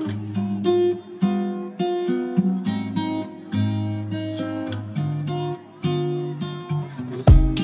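Background music of plucked acoustic guitar playing a melody over held bass notes, with loud percussive hits coming in near the end.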